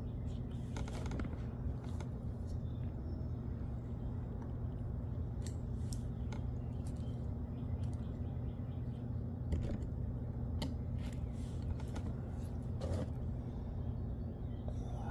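Scattered light metallic clicks and scrapes as Wilwood disc brake parts are worked into place by hand, over a steady low hum.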